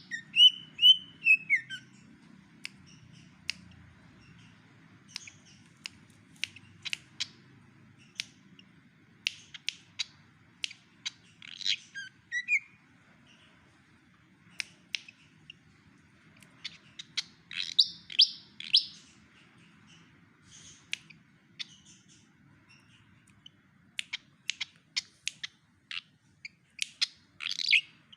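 Malaysian pied fantail singing in sharp chirps and quick whistled notes, mimicking the song of a white-rumped shama. A falling whistled phrase opens it, and denser flurries of notes come about twelve, eighteen and twenty-seven seconds in.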